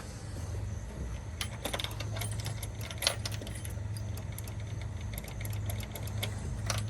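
A scatter of light irregular clicks and small metallic rattles over a steady low hum, from hands working the controls and parts of a riding mower.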